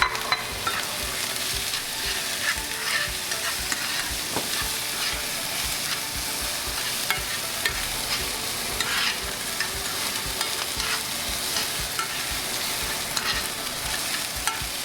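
Minced lemongrass, shallots, garlic and chili sizzling in hot vegetable oil in a pan while being stirred, with frequent short clicks and scrapes of the utensil against the pan. The aromatics are being fried until lightly browned.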